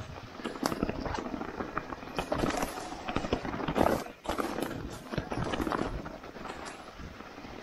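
Santa Cruz mountain bike running fast downhill over a rocky trail covered in dry leaves: tyres crunching through the leaves, with an irregular clatter of knocks and rattles as the wheels hit rocks.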